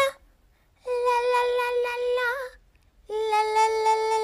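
A high singing voice holding two long notes with a short gap between them, the second slightly lower, the first ending in a small wobble in pitch.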